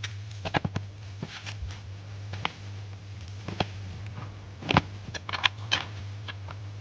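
Irregular clicks and taps of small parts being handled, bunched in two clusters, over a steady low hum.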